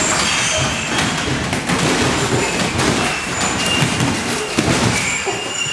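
Repeated thuds of MMA sparring on a gym mat: gloved strikes, bare feet stamping and shuffling, and bodies colliding in a clinch, over the steady noise of a busy training hall.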